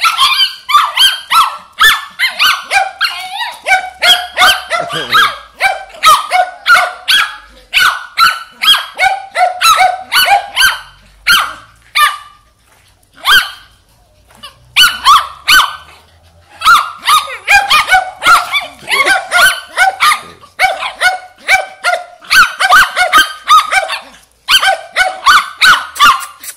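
Two small dogs barking rapidly and without letup at a green iguana, several sharp barks a second, with a lull of about two seconds midway.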